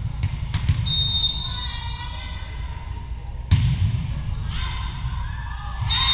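A volleyball bounced twice on a hardwood gym floor, then a short, steady, high referee's whistle signalling the serve, and about three and a half seconds in the sharp smack of the overhand serve. Shouting voices rise near the end, echoing in the large gym.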